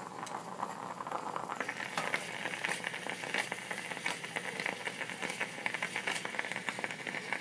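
Pot of bean soup with chopped smoked ribs cooking on the heat, a dense crackle of sizzling and bubbling that grows louder about a second and a half in.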